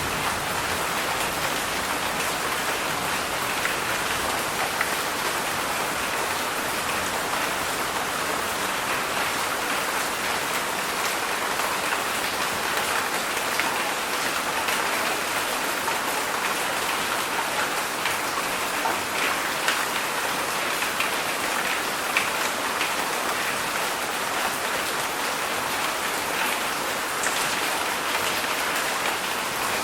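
Heavy rain falling steadily: a dense, even hiss of rain with scattered individual drops ticking on surfaces.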